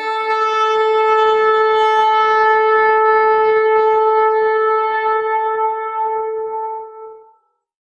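Shofar (ram's horn) sounded in one long held blast that fades out about seven seconds in.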